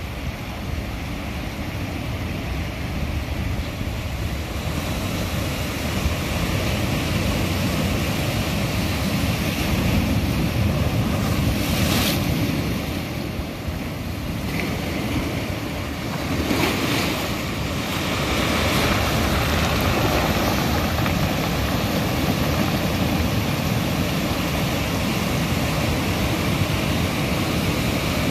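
Ocean surf breaking on a rocky reef and washing in over the rock ledges and cobbles, a continuous rush with wind rumbling on the microphone. Two sharper hissing splashes come about twelve and seventeen seconds in.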